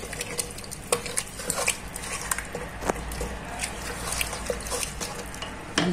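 A wooden spoon stirring raisins in sugar and oil in a metal pot, with irregular clicks and knocks of the spoon against the pot over a faint wet swishing.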